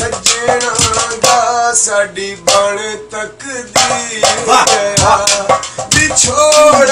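Punjabi mahiya folk song sung by a man, with a beat played by hand on an upturned metal cooking pot used as a drum: sharp strokes in a steady rhythm under the melody.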